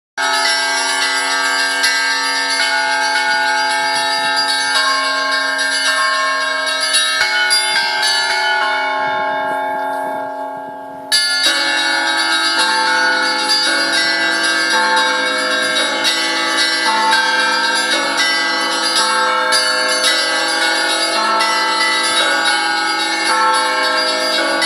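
Church bells of a Russian Orthodox belfry rung together: deep bells hum steadily beneath smaller bells struck in a quick changing pattern. About eleven seconds in, the ringing softens, then cuts abruptly back in at full strength.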